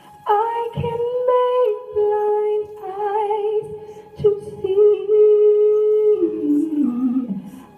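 A woman singing unaccompanied, holding long notes with vibrato. The melody falls step by step near the end.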